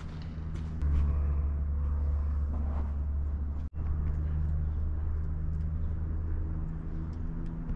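Steady low rumble of a motor vehicle engine running, with a few steady droning tones above it; the sound drops out for an instant about halfway through, then carries on.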